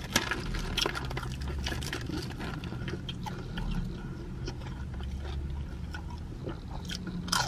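Close-up chewing of crispy fried chicken breading: many small crunches and wet mouth clicks, with a sharper smack near the end, over a low steady hum.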